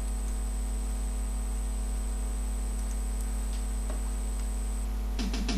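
Steady electrical hum with a thin high whine. About five seconds in, music with a quick, even beat starts.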